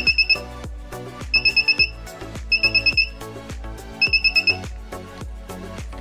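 Small piezo buzzer on an infrared remote tester circuit beeping in four quick bursts of about five high beeps each. The beeps show that the TSOP4838 receiver is picking up a remote control's signal while a button is pressed. Background music plays underneath.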